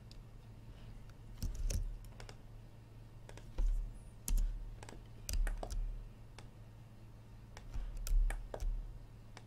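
Computer keyboard keystrokes and mouse clicks in four short clusters, some with a dull thud on the desk, over a steady low electrical hum.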